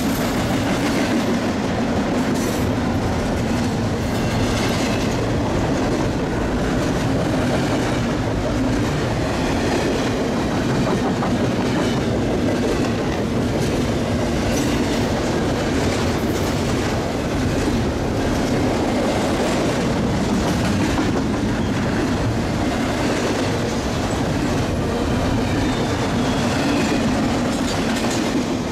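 Freight train rolling past: a steady rumble of steel wheels on the rails, with repeated clicks as the wheels cross rail joints.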